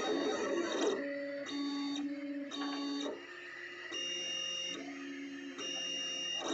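FDM 3D printer running a print: its stepper motors whine as the print head makes its moves. Each move holds one steady pitch and jumps to a new pitch every half second or so, after a noisier, busier first second.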